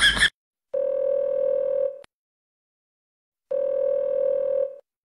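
Mobile phone ringback tone while an outgoing call rings: two long steady beeps, each a little over a second, about three seconds apart.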